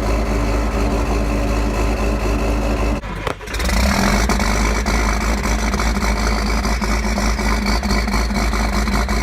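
Straight-piped tractor engines running loud and steady. About three seconds in, the sound drops out for half a second and a different engine comes in, running on steadily.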